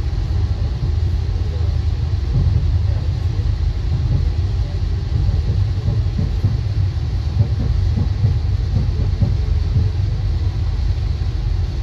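Steady low rumble of a VIA Rail passenger train running along the track, heard from on board.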